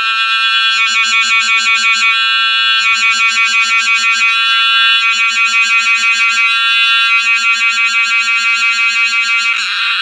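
Cicada singing at close range: a loud, high buzz that throbs rapidly, about four or five pulses a second, in phrases of one to two seconds with short steadier stretches between. Near the end it settles into a steady buzz.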